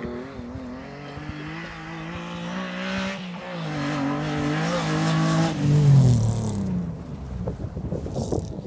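Alfa Romeo 156 ice racing: its engine revs rise and fall as the driver works the throttle, loudest about six seconds in as it passes, then dropping in pitch and fading as it drives away, leaving irregular crackling noise.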